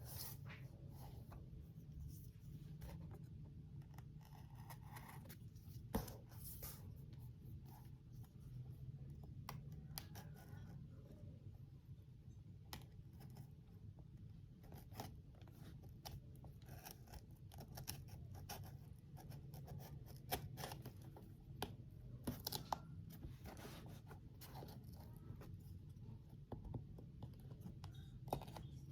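A plastic storage box and its packaging being handled and opened: scattered small clicks, scrapes and crinkles, with a couple of sharper knocks, over a low steady hum.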